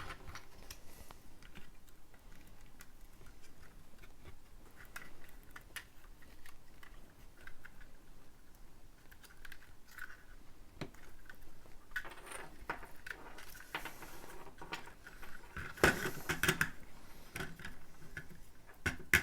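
Small plastic clicks and rustles of Lego bricks and thin LED light-kit wires being handled and pressed into place, with louder clusters of clicking about twelve and sixteen seconds in.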